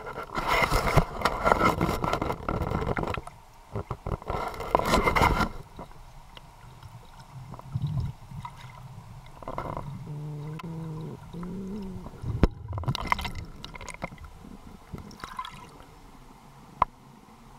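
Water gurgling and rushing around an underwater camera in murky river water, loud in two rushes over the first five or so seconds and quieter after that. About ten seconds in there is a short muffled pitched sound, and a few sharp clicks follow.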